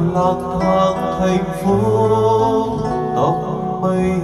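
A man singing a Vietnamese ballad karaoke into a microphone over an acoustic guitar backing track, amplified through the room's karaoke speakers.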